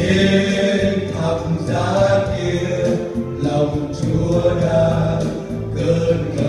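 A male vocal quartet sings a Vietnamese gospel hymn in harmony into microphones, over a musical accompaniment.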